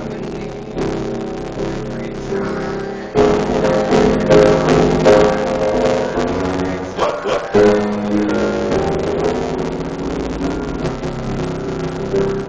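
Live music with piano, played as full chords that get louder about three seconds in, in a poor-quality recording.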